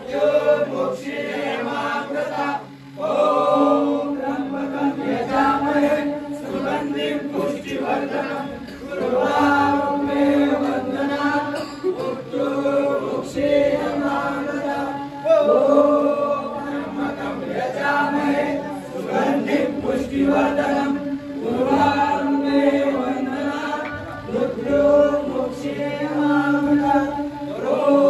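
Men chanting Hindu puja mantras together, holding long notes in a steady, repeating melody with short pauses for breath every few seconds.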